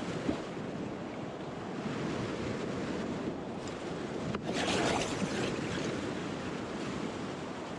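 Whitewater rapids rushing steadily around a kayak, with a louder splash about four and a half seconds in.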